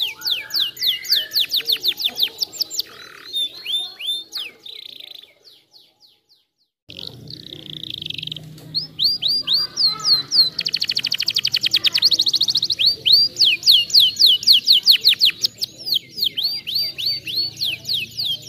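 Domestic canary singing: fast runs of repeated down-slurred whistled notes. The song breaks off about five seconds in and the sound cuts out for over a second. It then resumes, with a very fast rolling trill about ten seconds in.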